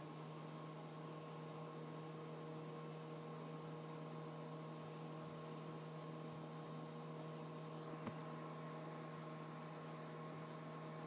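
Over-the-range microwave oven running with a steady low hum while heating a mug of milk and chocolate syrup. A faint click about eight seconds in.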